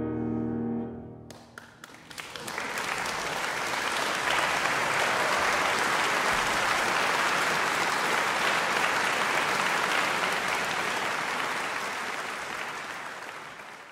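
A grand piano's final chord dies away, then a concert audience bursts into applause about a second and a half in: a few single claps at first, quickly building to steady clapping that fades near the end.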